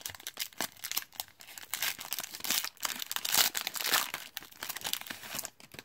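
Foil wrapper of a 2018 Panini Certified football card pack being torn open and pulled apart by hand: a run of crinkling, crackling rustles, busiest in the middle.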